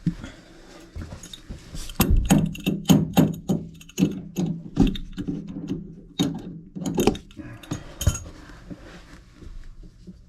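A run of sharp knocks and taps in quick, irregular succession. It starts about two seconds in and thins out after about eight seconds.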